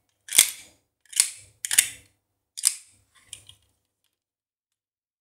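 Battle Phoenix B-daman toy marble launcher firing marbles from its magazine: five sharp snaps of the trigger, less than a second apart, stopping after about three and a half seconds.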